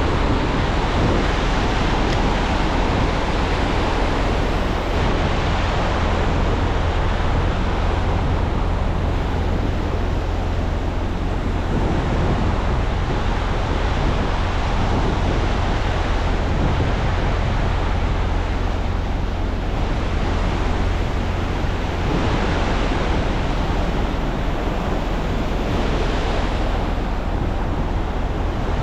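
Ocean surf breaking and washing on the beach: a steady rushing noise that swells and eases, with wind rumbling on the microphone.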